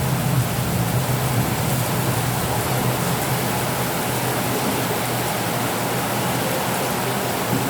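Steady downpour of rain, an even hiss. A low rumble fades out over the first second or so.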